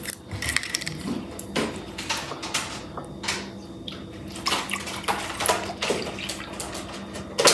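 Milk pouring from a plastic jug into a measuring cup, a splashing trickle broken by short clicks and knocks, over a faint steady hum.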